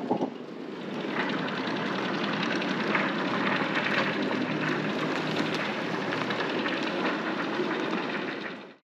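Steady rushing noise of strong wind, after a couple of knocks at the start. It comes up about a second in and cuts off suddenly just before the end.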